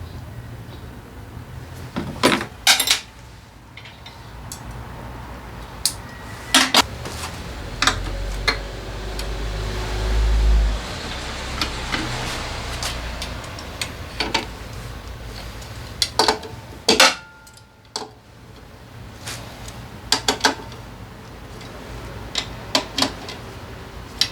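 Metal tools and parts clinking and knocking in scattered sharp taps, some in quick pairs. A low rumble swells for a few seconds about a third of the way in.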